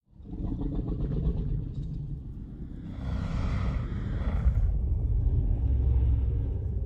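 A monster-movie sound effect: a deep, heavy rumble that starts abruptly. A rougher, brighter layer swells over it from about three seconds in, then fades back into the low rumble.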